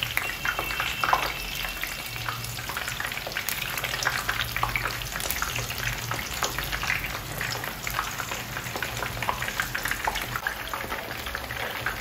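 Floured croaker fish pieces, still frozen, and whole onions frying in a pan of oil on low heat: a steady crackling sizzle full of small pops.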